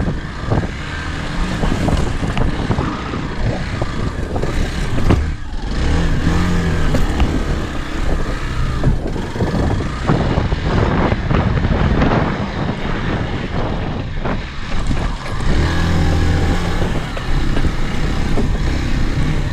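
Hero Xpulse 200 motorcycle's single-cylinder engine running under throttle as the bike is ridden over big rocks on an off-road trail, with many short knocks and clatter from the wheels and suspension.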